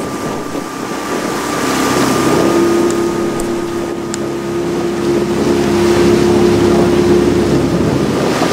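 Outboard motor of a coaching launch running steadily, its hum strengthening about two seconds in and holding, with wind buffeting the microphone.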